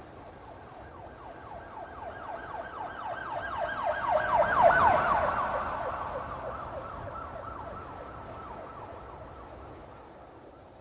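Police car siren in a rapid yelp, its pitch sweeping quickly and repeatedly, growing louder to a peak about halfway through and then fading as the vehicle passes by.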